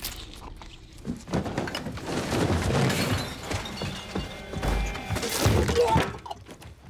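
Film soundtrack: music under a run of quick knocks, thuds and crashes as food is torn at and rummaged through, loudest a little after the midpoint.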